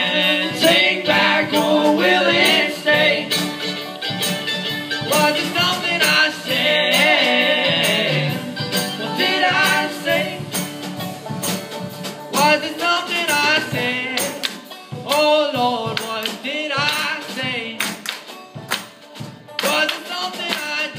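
Live acoustic band music: banjo and acoustic guitar with a drum kit, and singing.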